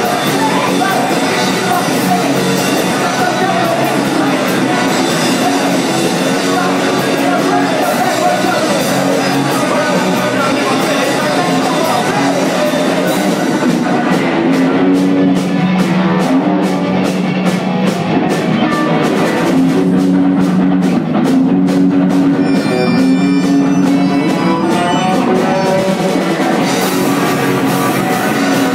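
Live rock band playing: electric guitars, a drum kit and sung vocals. The cymbals drop out for a stretch in the middle, leaving guitars, drums and held vocal notes, and come back near the end.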